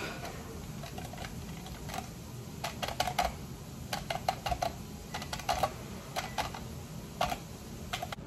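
A metal pick poking holes in the tinfoil over a hookah bowl: a run of irregular sharp clicks, some coming in quick clusters of two or three.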